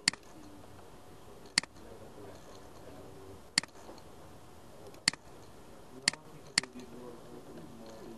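Computer mouse button clicking six times at uneven intervals, sharp single clicks as tree nodes and checkboxes in a software dialog are clicked open.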